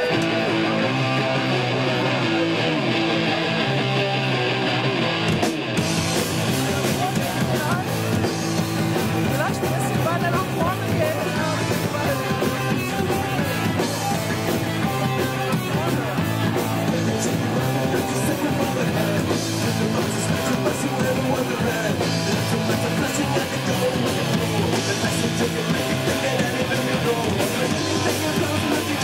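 Rock band playing live: electric guitar, bass and drum kit. The sound fills out about six seconds in and stays full and steady.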